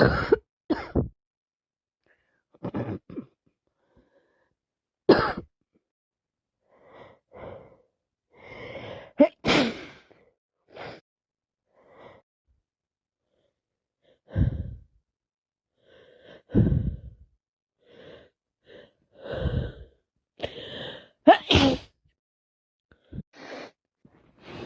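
A person with a heavy head cold sneezing again and again, about nine sharp sneezes spread through the stretch, with gasping in-breaths building up before several of them.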